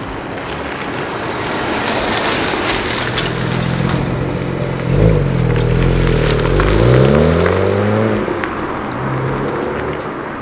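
Exhaust of a BMW 335xi's twin-turbo N54 straight-six, fitted with electric exhaust cutouts, as the car drives. The engine note rises and falls over a steady rush of road and wind noise that builds and is loudest in the middle.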